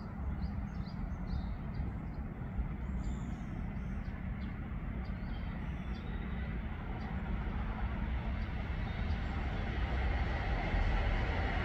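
Distant electric trains (a 281 series Haruka limited express and a 223 series EMU) running along the line: a steady rumble that grows louder near the end as they approach.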